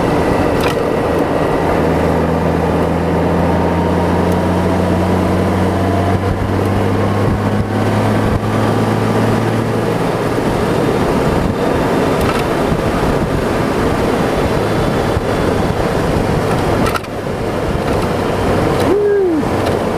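Honda Gold Wing motorcycle under way on wet pavement: a steady rush of wind and tyre noise with the engine's hum underneath. The engine note climbs gently for several seconds, starting about two seconds in, then sinks back into the road noise.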